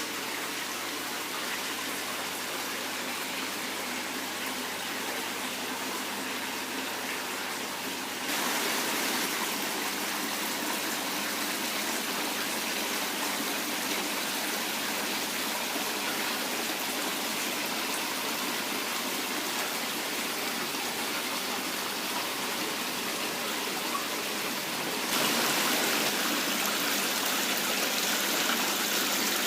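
Water running and splashing steadily down an artificial decorative waterfall. It gets louder in a sudden step about eight seconds in and again near the end.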